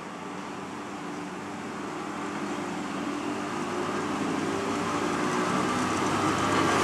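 VR Sr1 electric locomotive pulling a train away, its electric hum made of several tones that rise slowly in pitch as it gathers speed, growing steadily louder as it comes closer.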